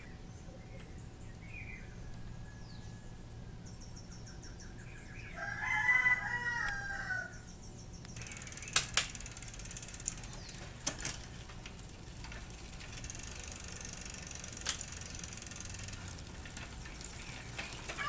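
A rooster crows once, about five seconds in, over faint chirping of small birds. From about eight seconds on, the bicycle's rear wheel and chain are spun by hand through the rear derailleur, a light whir with a few sharp clicks.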